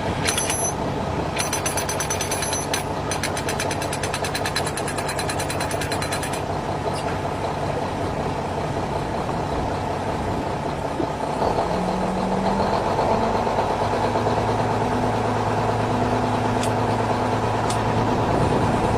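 Excavator's diesel engine running steadily, with a fast rattling over the first few seconds. A little past halfway the engine gets louder and a little higher, as if working under more load.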